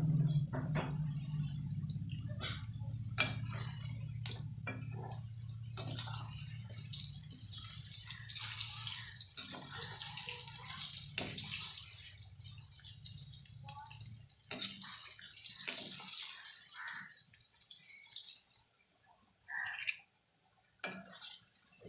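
Batter-coated banana fritters deep-frying in a steel kadhai: hot oil sizzling and crackling, with a metal spoon knocking and scraping against the pan now and then. A low hum runs underneath for most of the stretch, and the sizzling cuts off suddenly near the end.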